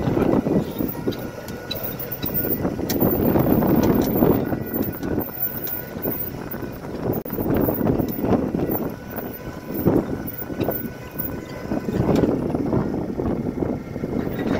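A longliner fishing boat's engine running under way, with water rushing and splashing along the hull in surges every few seconds.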